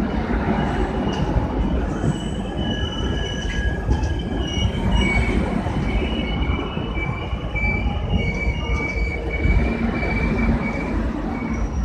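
LHB passenger coaches of an arriving train rolling past, the wheels rumbling steadily on the rails. From about two seconds in, high wavering squeals from the wheels come and go over the rumble as the train pulls into the station.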